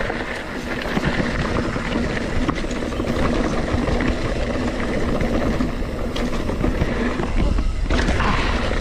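Mountain bike rolling fast down a dirt fire road: wind rushing over the microphone with the bike rattling and clattering over the rough, leaf-strewn ground, with a stronger gust of wind noise near the end.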